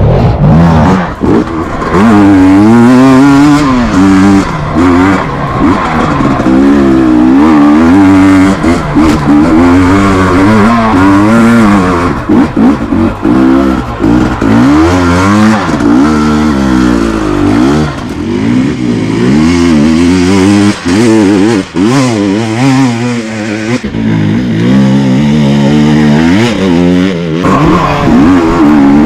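KTM EXC 250 TPI fuel-injected two-stroke enduro motorcycle engine being ridden hard off-road, the revs rising and falling every second or two as the throttle is constantly opened and shut. The throttle is briefly chopped a couple of times near the two-thirds mark.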